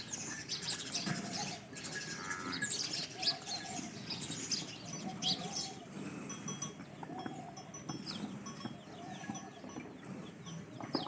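Bells on buffaloes clinking irregularly as the livestock move, with a short call repeated several times.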